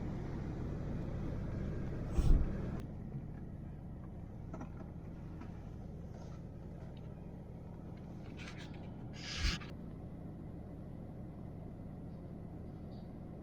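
Vehicle engine running steadily with a low rumble. A loud thump comes about two seconds in, and a short hissing rattle follows later.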